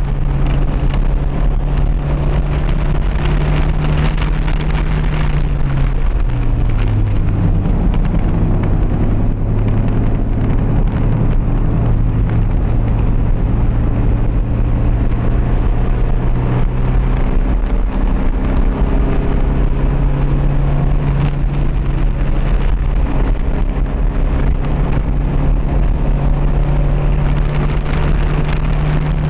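1988 Honda CRX HF's four-cylinder engine running hard under way, heard from inside the cabin over steady road and wind noise. The engine note drops suddenly about six seconds in, climbs slowly, then jumps back up about seventeen seconds in.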